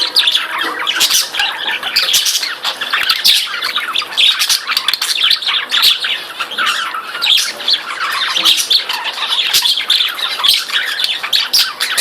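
Several budgerigars chattering and squawking together, a continuous jumble of short chirps and warbles.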